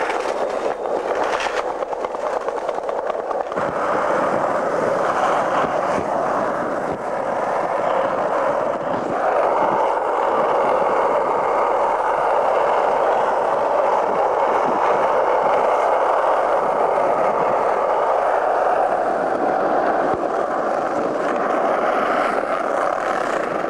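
Skateboard wheels rolling fast on street pavement: a steady rolling roar that grows louder about four seconds in and stays loud.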